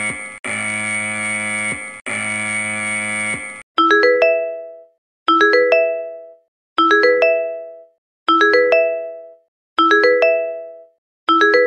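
Central Weather Bureau earthquake alert tones. The strong-earthquake early-warning alarm, a harsh buzzing tone pulsed in long blocks with brief gaps, cuts off after about three and a half seconds. It gives way to the earthquake-report chime: a quick rising four-note ding-dong, repeated about every second and a half.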